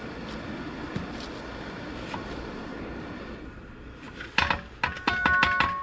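A steady rushing noise from the forge, then a quick run of about seven hammer blows on hot steel, starting about four seconds in. The struck metal rings clearly after the blows.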